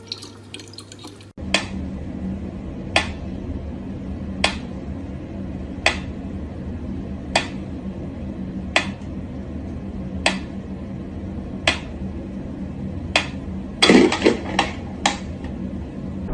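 A thin stream of tap water runs for about the first second. Then a mechanical pendulum metronome ticks slowly, one sharp click about every one and a half seconds, over a steady low hum. Near the end comes a brief louder cluster of sounds.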